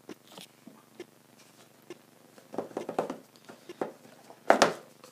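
Small cardboard product box being handled and opened on a wooden desk: scattered light taps, knocks and scrapes of cardboard, busier around the middle, with one louder knock about four and a half seconds in.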